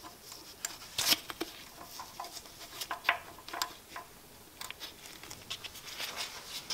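Light, irregular metal clicks and taps of a hex key tightening the set screw of the brake coupling on a Jet JWL-1642EVS lathe spindle.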